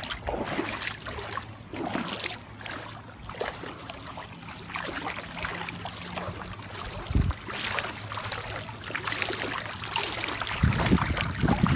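Floodwater splashing and sloshing around a car, with a faint steady low hum under it. There is a single low thump about seven seconds in, and a heavier low rumble starts near the end.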